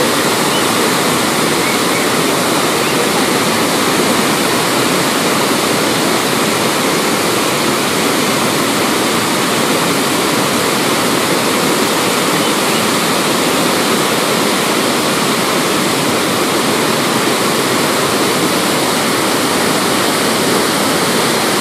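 Hogenakkal Falls on the Kaveri river: water pouring over the falls in a loud, steady, unbroken rush.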